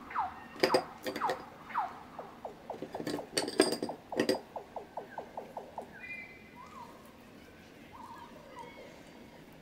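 Wet, clay-coated fingers rubbing over a clay pumpkin, making a run of short squeaks that fall in pitch, quickening a couple of seconds in, with a few sharp clinks of a brush against a small glass jar. The squeaks turn faint in the second half.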